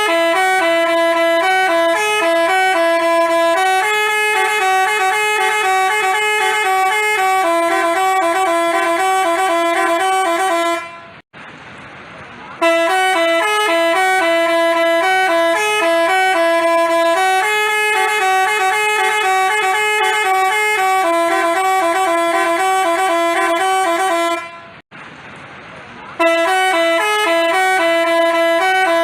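Basuri telolet horn playing a melody of quick stepped notes in long phrases, with two short pauses about 11 and 25 seconds in.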